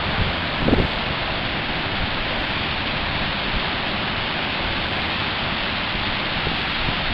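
Pacific surf breaking over a rocky shoreline, a steady rush of noise, with a brief low thump less than a second in.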